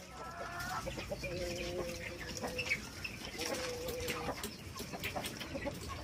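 Caged quail calling: scattered short chirps, with two long, level calls in the first few seconds.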